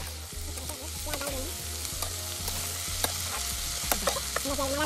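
Sliced onions sizzling in hot oil in a black iron kadhai as a metal spatula stirs them, with sharp clicks now and then where the spatula strikes and scrapes the pan.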